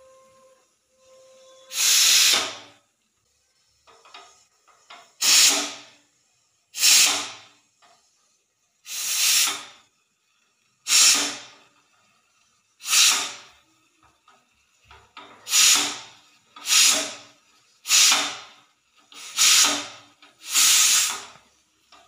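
Pressure cooker's weighted whistle valve lifted by hand again and again, letting out about eleven short blasts of hissing steam, coming faster near the end. A faint steady whistle tone is heard in the first second or so.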